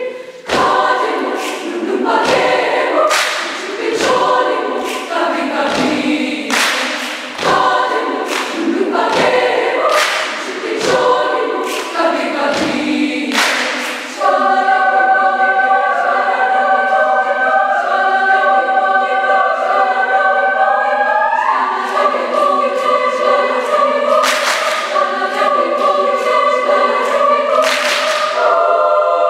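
A large girls' choir singing, cut by sharp percussive accents about once a second through the first half. About halfway through the voices settle into long held chords, slide upward a little later, and a couple more sharp accents come near the end.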